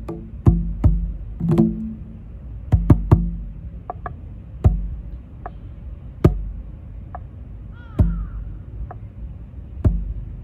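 Tombak (Persian goblet drum) played by hand: sharp finger strikes and deep bass strokes, quick and clustered for the first few seconds, then single strokes about a second apart. Heard through a phone's built-in microphone.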